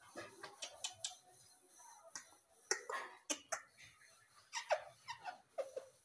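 Indian ringneck parrot tapping and clicking its beak on a smartphone screen, a string of short sharp taps. In the last second or so it gives several short, soft calls that slide down in pitch.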